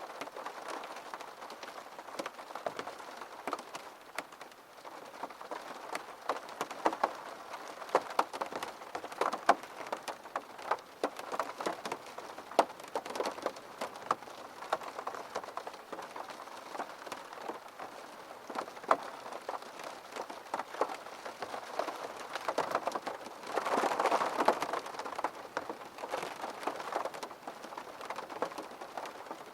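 Steady rain falling, with many separate drops striking close by as sharp taps over the even hiss, and a brief louder rush of rain about three-quarters of the way through.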